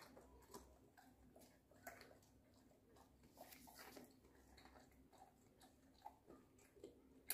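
Near silence with faint, irregular crunching ticks: a Labrador chewing a raw green bean.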